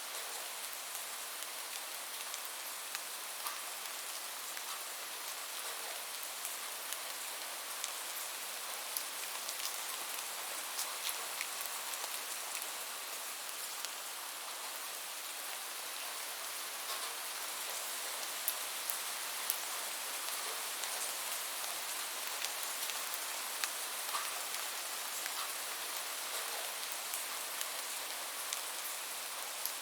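Steady rain falling, a continuous hiss with scattered sharp drop ticks.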